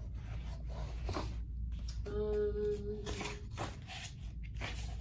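A woman hums one steady note for about a second and a half, starting about two seconds in. Around it are short papery rustles of guidebook pages being leafed through.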